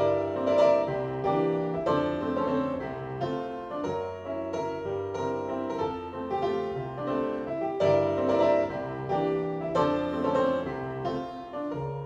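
Piano music playing from a vinyl record on a Victor turntable, heard through floor-standing hi-fi speakers in the room.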